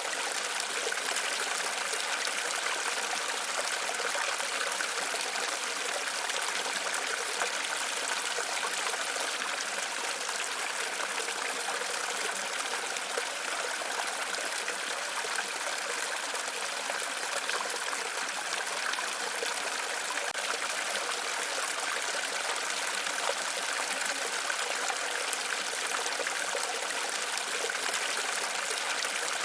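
Waterfall water running steadily, an even rushing sound with most of its weight in the upper range and little deep rumble.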